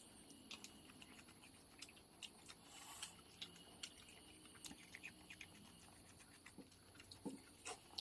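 Near silence with faint, scattered small clicks and ticks.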